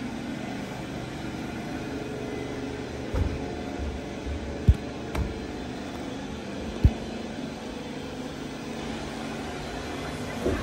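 Steady low mechanical hum, with a few short, dull thumps between about three and seven seconds in.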